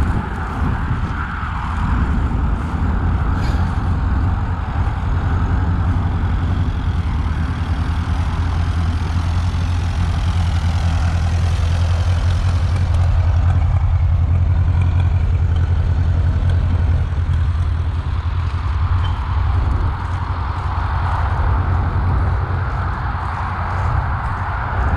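Tractor engine running steadily, a little louder around the middle.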